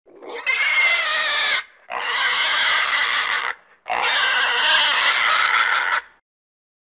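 Horse neighing: three long, wavering whinnies in a row with short breaks between them.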